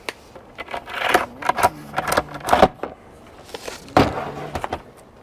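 Irregular clicks, taps and rustles of a new battery chainsaw and its packaging being handled, several sharp knocks mixed with short scrapes.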